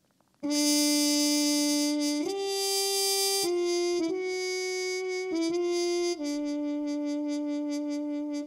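Akai EWI USB electronic wind controller played by breath through a computer synth, giving a saxophone-like tone. A slow phrase of about seven held notes climbs from a low note and settles back on it for the last two seconds.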